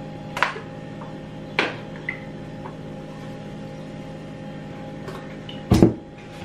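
Kitchen handling sounds at the stove: a few sharp clicks of a plastic seasoning jar and packet being handled, then a heavier knock near the end as something is set down on the stovetop, over a steady appliance hum.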